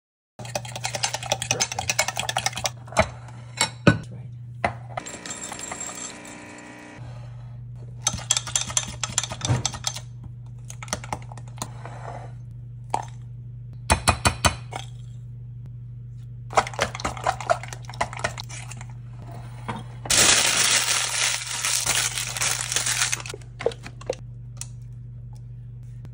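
Metal fork beating and clinking against a glass measuring cup in irregular runs of quick taps while eggs and melted chocolate are mixed, over a steady low hum. Near the end comes a louder stretch of scraping and rustling lasting about three seconds.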